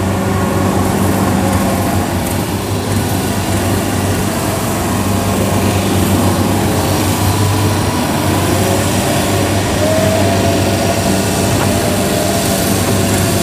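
Kubota DC70 crawler rice combine harvester's diesel engine running steadily under heavy load, with a steady low drone, as its tracks churn through deep, sticky paddy mud.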